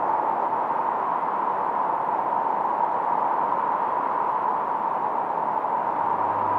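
Steady hiss from a 1972 Minimoog's noise generator, filtered into a band brightest around the middle of the range, as a synthesized stormy-sea sound. No pitched tones sound until a low drone comes back in right at the end.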